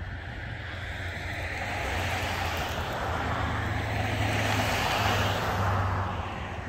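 Rolling noise of a narrow-gauge passenger train heard from aboard: a steady low hum under a rushing hiss that swells over a few seconds and then eases off.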